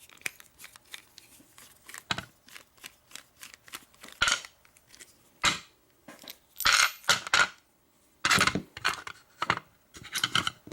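American 1100 padlock being taken apart by hand, its small metal parts clicking and scraping: a run of light ticks, with several louder scrapes and rattles in the second half.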